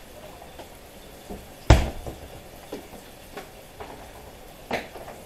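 Kitchen clatter: scattered knocks of dishes and kitchenware being handled, with a heavy thump a little under two seconds in and a sharper knock near the end.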